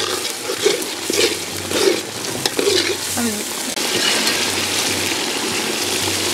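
A metal ladle stirring a bubbling spice paste in a large aluminium pot over a fire, scraping and sloshing in even strokes about every two-thirds of a second. About halfway through the strokes stop and a steady sizzle from the pot carries on.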